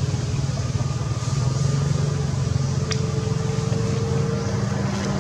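Steady low engine-like hum, with a faint higher steady tone over it and a single sharp tick about three seconds in.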